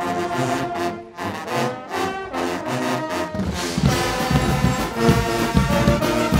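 Guggenmusik carnival brass band playing: trumpets, trombones, baritone horns and sousaphones in rhythmic chords, with the drums and low brass coming in heavily about three seconds in.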